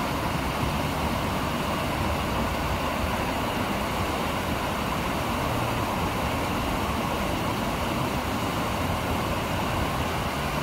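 Water of the man-made Ara Waterfall rushing steadily down rock ledges, a continuous even rush that does not change.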